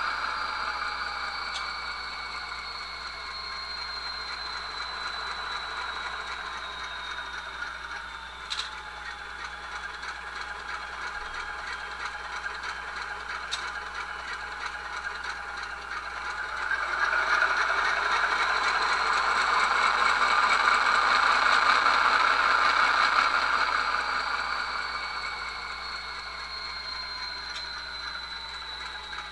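Recorded ALCO 244 diesel engine sound from a QSI Titan model-railroad decoder, played through an HO locomotive's small speaker. The engine winds down over the first several seconds, with a high whine falling in pitch. It then revs up and runs louder for several seconds past the middle before dropping back.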